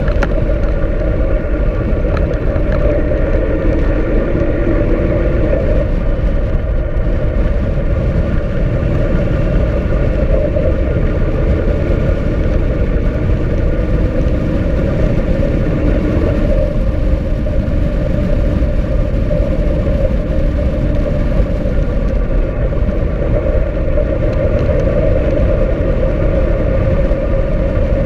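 Motorcycle riding at steady speed: loud wind rush on the camera's microphone over the motorcycle engine running with a steady drone.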